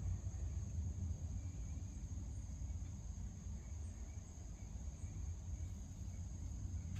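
Evening insect chorus, a steady high-pitched trill that holds without a break, over a low rumble.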